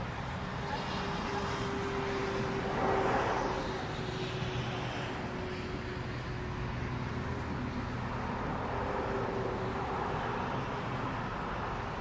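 Steady outdoor road-traffic rumble with a faint engine-like hum, swelling briefly about three seconds in.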